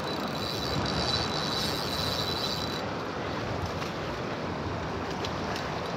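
Shallow river current rushing steadily over rocks in a riffle. A faint high steady tone stops about three seconds in.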